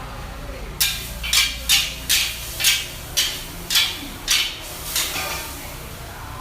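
A kitchen utensil striking or scraping about nine times in quick succession, roughly two strokes a second, then stopping, over a steady low rumble.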